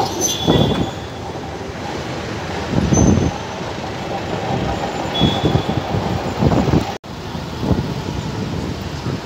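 Street tram rolling past close by and on along its track, with several heavy low thumps from its running gear. The sound cuts off abruptly about seven seconds in, and general street traffic follows.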